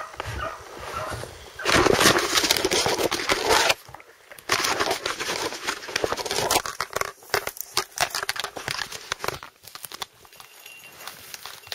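Dry spruce branches and brush crackling, snapping and scraping against a gun-mounted camera as it is pushed quickly through dense scrub. The crackling comes in two long loud stretches, then thins to scattered cracks.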